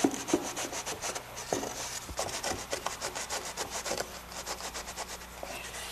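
Aluminium straight edge scraped across a damp sand-and-cement deck mud bed in quick repeated strokes, a gritty rasping as the mortar is screeded to slope toward the shower drain.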